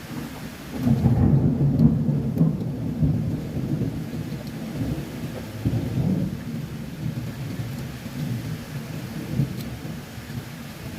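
Thunder rumbling over steady rain. The low rumble breaks in suddenly about a second in and is loudest over the next two seconds. It then rolls on, swells again midway and slowly fades.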